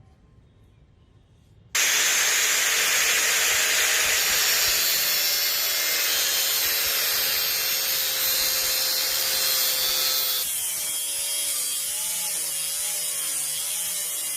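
Power tool grinding a steel drill bit: a loud steady grinding hiss with a motor whine starts suddenly about two seconds in. About ten seconds in the high hiss drops and the whine wavers up and down in pitch.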